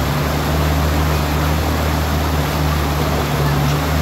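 A vehicle engine running steadily, a low even hum, under a constant rushing hiss.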